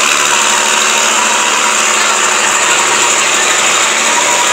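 Pickup truck engine idling with a steady drone, under a loud, even background din.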